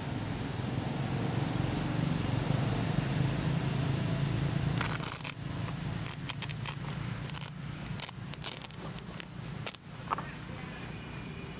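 A steady low drone that fades about five seconds in, followed by a run of sharp crackling and scraping clicks.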